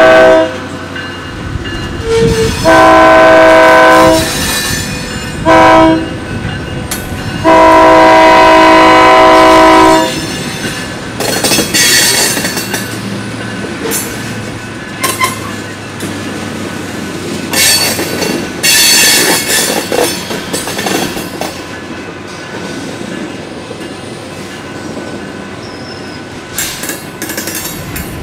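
Diesel switch locomotive's air horn sounding the grade-crossing signal in a chord of several tones: the end of one long blast about half a second in, then a long, a short and a long blast. After that the hopper cars roll through the crossing with wheel squeal and clatter.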